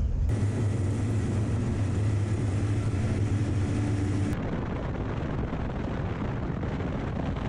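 Lada 4x4 engine running as the car drives, a steady hum with wide road and tyre noise above it. The sound changes abruptly twice, about a third of a second in and about four seconds in.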